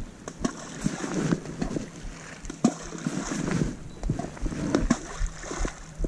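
Close rustling and crackling right at the microphone, with many scattered sharp clicks coming and going unevenly.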